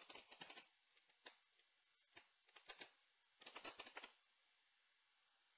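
Typing on a computer keyboard: quick key clicks in several short bursts, stopping about four seconds in.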